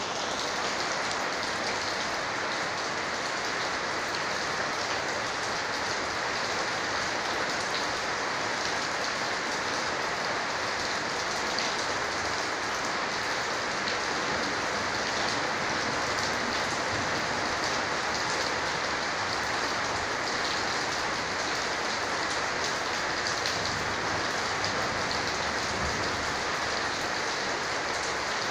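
Heavy rain pouring down steadily, with drops hitting a corrugated roof in a dense, even patter.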